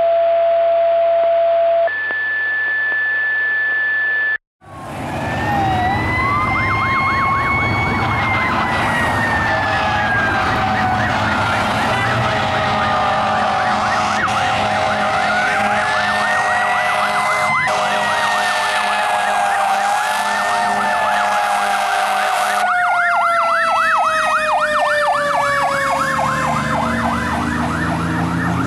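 Two long steady alert tones, a low one then a higher one, like a fire-company paging alert. After a short break, fire apparatus sirens: a Federal Q2B mechanical siren winding up and coasting down in long rising and falling wails, mixed with a fast electronic yelp that quickens near the end as the wail slowly falls away.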